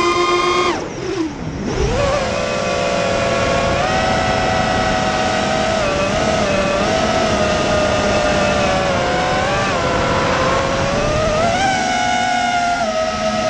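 FPV racing quadcopter's brushless motors and propellers, heard from the onboard camera, whining in several tones that rise and fall together with the throttle. The pitch and loudness drop sharply about a second in as the throttle is cut, then climb back and hold fairly steady, with further small swells and dips.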